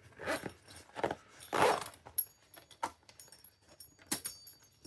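The SafeSpace lockable storage bag being handled and closed: a few short rustling, zipper-like strokes, then light ticks and a sharper click about four seconds in.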